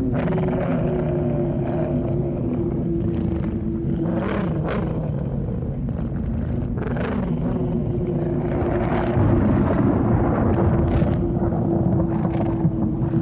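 Eerie sound-effect drone: a steady held tone over a low rumble, with a few brief sharp noises scattered through it, swelling slightly about nine seconds in.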